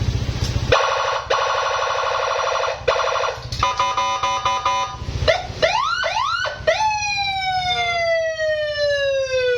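Police-escort style electronic siren run through its tones. It gives a steady blaring tone from about a second in, then a fast pulsing tone, then a series of quick rising whoops, and finally a long wail that falls slowly in pitch.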